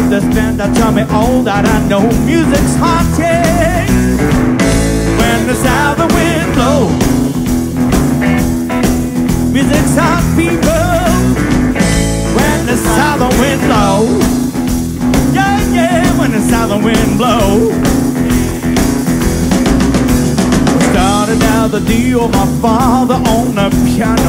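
Live rock band playing: electric guitar over bass guitar and a steady drum beat.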